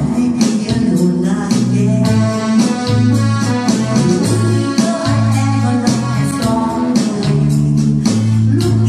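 A woman singing into a microphone over a keyboard accompaniment with a steady bass line and drum beat.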